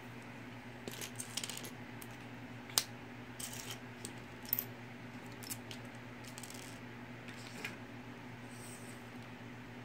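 Loose plastic Mega Bloks building pieces clicking and clattering against each other and the table as a hand sifts through the pile, in scattered small clusters with one sharper click about three seconds in.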